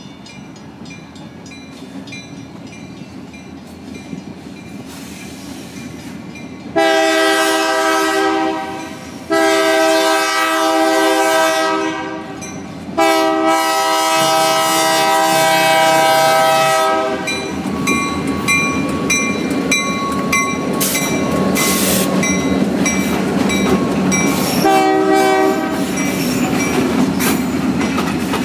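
Freight train's diesel locomotives approaching, growing slowly louder, then sounding their air horn in three long blasts, several notes at once. The locomotives then pass close by with a loud, steady rumble of engines and wheels on the rails, and a shorter horn blast comes near the end.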